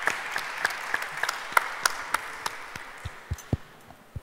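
Audience applause, a dense patter of hand claps that thins out and fades over the last second or so. A few low thumps about three seconds in.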